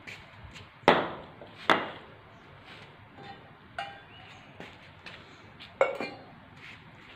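Two loud knocks on a concrete floor about a second in, then lighter clicks and a short metallic ring. Near the end, stacked steel bowls are set down on the concrete with a double clink and a brief ring.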